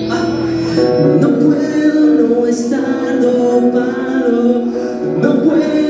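Rock band playing live, with a voice singing held, wavering notes that come in about a second in.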